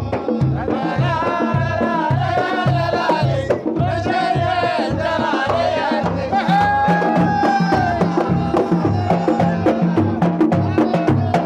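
Samri folk song: a group singing held, wavering phrases over a steady beat of frame drums, with sharp claps or strikes on the rhythm.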